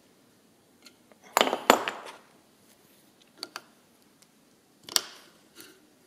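Hand tools clinking against metal while a pedal bearing is adjusted in a vise: a handful of short, sharp metallic clinks, the loudest pair about a second and a half in and another near five seconds.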